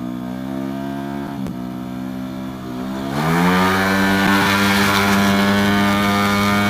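Tuned race Vespa scooter engine of about 200cc pulling under throttle: its note climbs gently, then about three seconds in the throttle is opened wide and the engine jumps sharply higher and louder, holding a high steady note as the scooter accelerates.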